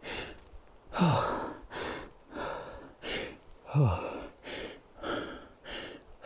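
A man breathing hard and fast after climbing about 240 steps, roughly three breaths every two seconds, with two short falling voiced sighs about a second in and near the four-second mark: he is out of breath from the climb.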